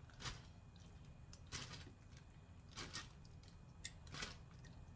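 A bag rustling and crinkling in short bursts, about five in all, as pieces of marinated chicken are put into it.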